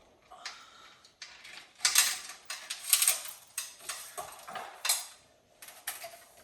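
Hard objects clattering and clinking in irregular handling noise, with sharp knocks about two, three and five seconds in.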